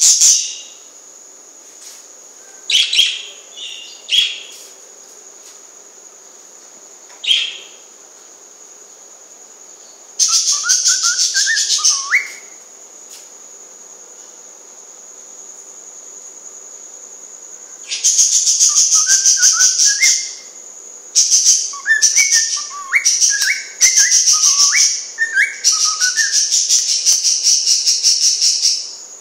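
Cockatiel singing: a few short chirps, then a whistled tune of stepped notes about ten seconds in and a longer run of whistled phrases from about eighteen seconds on, mixed with harsh, buzzy notes.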